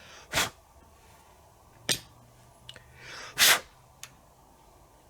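Workbench handling noises: a few sharp clicks of small parts or tools, and two short hissing bursts, the longer and louder one about three and a half seconds in.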